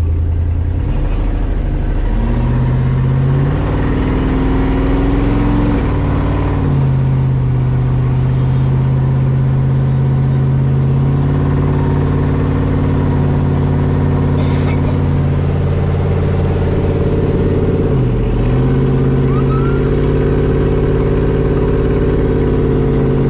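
LS V8 engine in a 1954 Chevy running under way on a test drive after work on a misfire in cylinders 7 and 8. The engine note is steady and loud, shifting pitch a few times as the car speeds up and eases off, with a brief dip about eighteen seconds in.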